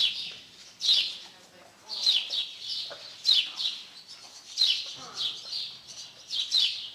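Small birds chirping repeatedly, with short, high, downward-sliding chirps about once a second, some in quick pairs.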